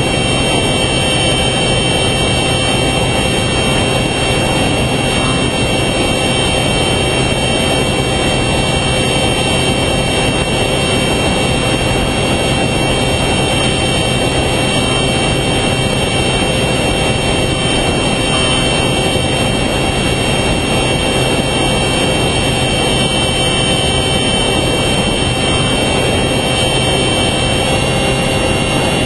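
Steady drone of an FPV model plane's electric motor and propeller, with wind rushing past, heard from the camera on board the plane. It holds several steady tones throughout.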